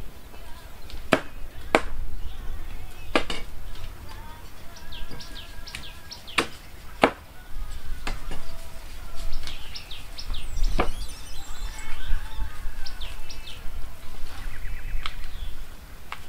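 Cleaver chopping through the tough stem ends of fresh corn ears against a wooden table, about seven sharp chops, several in quick pairs, spaced a second or more apart, with the rustle of husks being peeled between them.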